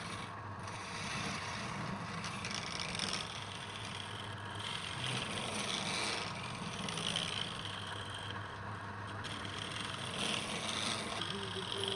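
Wood lathe running with a steady motor hum while a turning tool scrapes the spinning wood, the scraping hiss swelling and easing every second or two.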